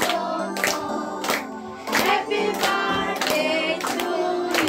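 Several voices singing a birthday song together, with hands clapping along in time, roughly three claps every two seconds.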